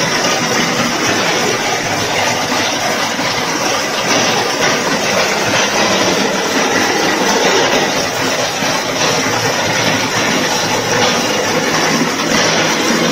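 Automatic wall plastering machine running steadily as its carriage climbs the rack mast, its motor and trowel plate spreading mortar onto a brick wall: a loud, continuous mechanical noise.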